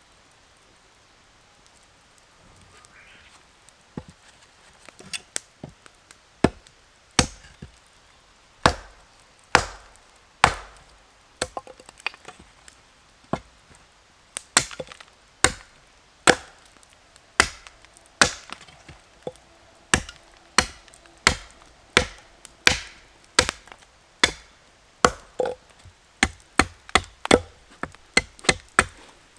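Firewood being chopped or split with repeated sharp blows, about one a second, quickening near the end.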